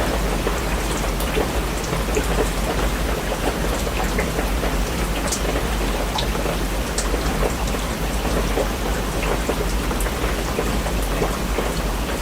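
Steady rain falling, with many separate drops ticking on a surface, over a constant low rumble.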